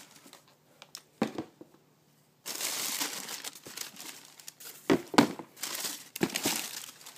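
Shoe-box packing being handled, crinkling and rustling, with a long rustle about two and a half seconds in and several sharp knocks and clicks near the end.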